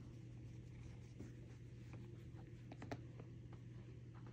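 Faint rustling and a few soft clicks as a cat shifts on a fabric office chair, over a steady low room hum.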